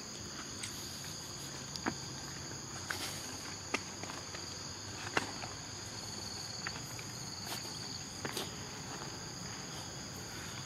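Steady high-pitched drone of insects in forest undergrowth, with scattered light footsteps and crunches on leaf litter and soil every second or so.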